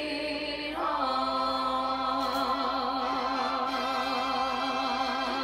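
Recorded vocal song: the singer moves up to a new note about a second in and holds it with vibrato, over backing voices, as the song reaches its final held note.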